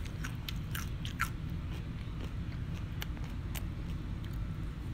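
Chips crunched and chewed close to the microphone, the crunches clustered in the first second or so and sparser after, over a steady low rumble.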